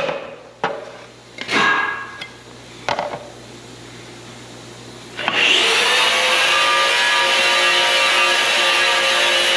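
A few short scraping strokes, like body filler being mixed with a spreader. About five seconds in, a handheld power tool starts abruptly and runs at a loud, steady whine.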